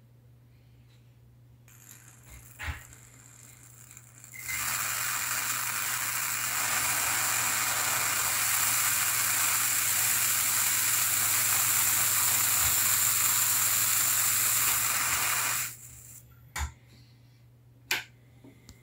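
Homemade solid-state Tesla coil driven by an MJE13009 transistor, its plasma flame hissing loudly and steadily from the breakout wire, with a thin high whine in the hiss. It starts about four seconds in, runs for about eleven seconds and cuts off suddenly. A few sharp clicks come before and after it.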